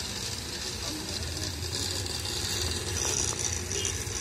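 Steady background noise: an even hiss with a low hum underneath, without clear individual knocks or clicks.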